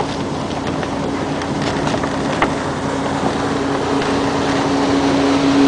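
Wind buffeting the microphone on the deck of a sailing schooner, with a few sharp clicks from the rigging in the first half. A steady boat-engine hum grows louder through the second half.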